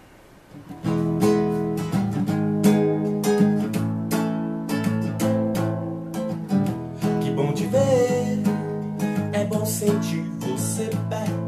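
Acoustic guitar strummed in a steady xote rhythm, playing the intro of a forró song; it starts about a second in.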